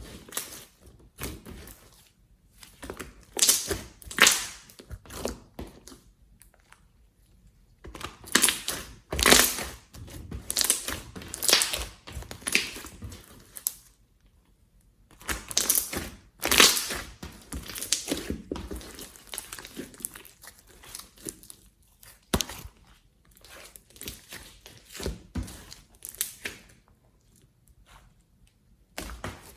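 Slime being squeezed and worked by hand, giving irregular bursts of crinkly crackling with short pauses between them.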